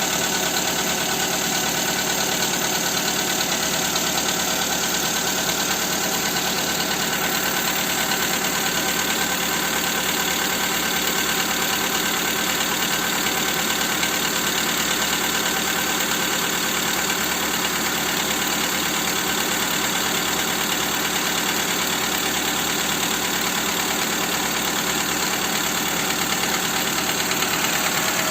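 Skoda Fabia II's 1.4 engine running steadily with a knock that remains after the camshaft cover was replaced.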